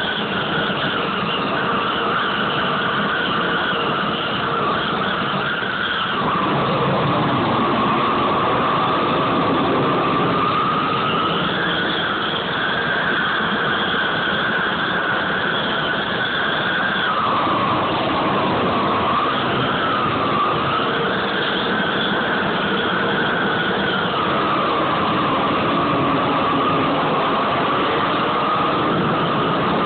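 Hand-held propane torch on a hose, burning steadily with a dense rushing noise and a whistling tone that steps up and down in pitch every few seconds.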